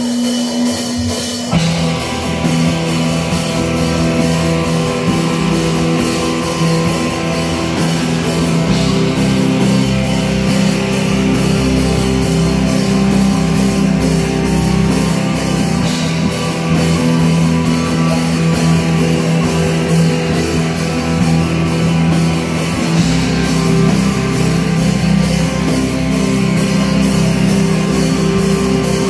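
Heavy metal band playing live: distorted electric guitars, a Casio keyboard and a drum kit. The full band comes in about a second and a half in.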